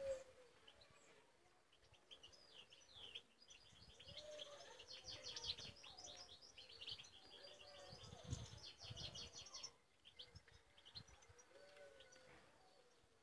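Faint twittering of caged goldfinches, with a dense run of fast high chirps and trills through the middle that breaks off near the end. A low call repeats underneath every second or two.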